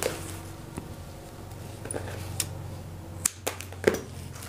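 Sharp, scattered clicks and ticks of stiff plastic craft wire being handled, as strands of the coil knock and slap against the tabletop, a few of them spread out with the loudest near the end. A faint steady low hum lies under them.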